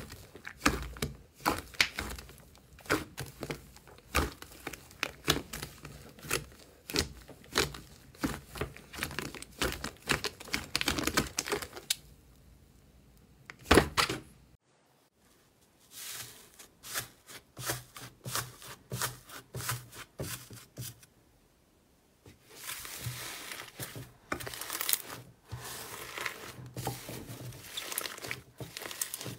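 Thick slime squeezed and kneaded by hand: a quick, irregular run of sticky clicks and pops. It breaks off about halfway through, then comes back, and near the end turns into a denser, more continuous crackle as slime is pulled and stretched.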